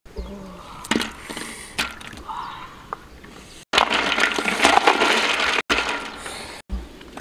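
A large pot of water with snails and eggs cooking over a wood fire, with a few sharp cracks and splashes, then a dense, loud crackling and bubbling for about two seconds in the middle as lemongrass stalks go into the pot. The sound cuts off abruptly several times.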